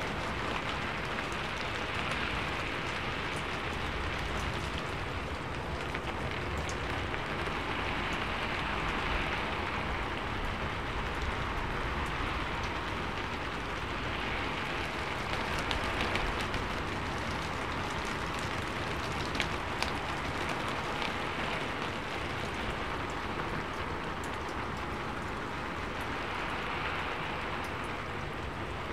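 Steady rain drumming on a sheet-metal roof, a dense patter that swells and eases about every six seconds. A couple of sharper drop ticks stand out about two-thirds of the way through.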